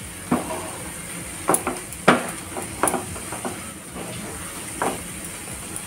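Silicone spatula scraping and knocking against a nonstick frying pan as a thick, sticky date-and-nut mixture is pushed and gathered. About half a dozen irregular scrapes, the loudest about two seconds in, over a faint steady hiss.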